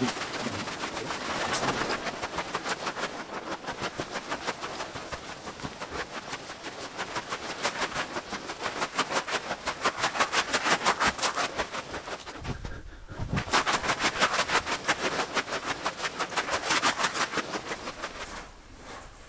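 Quick, even footsteps on a sandy canyon floor, several a second, which grow quieter near the end.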